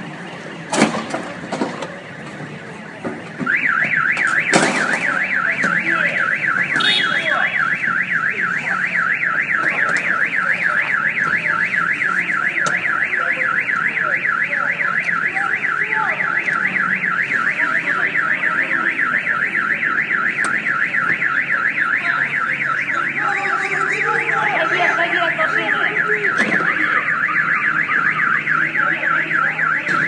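Car alarm siren sounding, a loud fast warbling tone that sweeps up and down over and over, starting about three and a half seconds in after a few sharp knocks.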